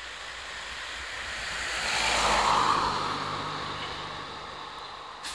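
A car passing on the street, its tyre and engine noise swelling to a peak about two and a half seconds in and fading away. Underneath, the low steady run of a fire engine's diesel engine as it creeps out of the bay.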